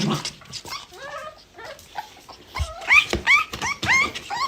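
A dog giving a quick string of short, high, whining yips, each rising in pitch, about three or four a second, growing louder about two and a half seconds in.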